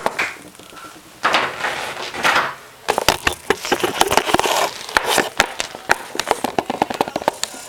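Handling noise on the camera's microphone: rustling and rubbing, then a quick, irregular run of clicks and knocks. The camera is being fumbled and bumped by hands in padded boxing gloves.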